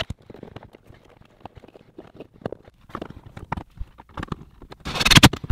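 Scattered light clicks and knocks of a tool and wiring being handled, then a short burst of a cordless drill driving a screw near the end, the loudest sound.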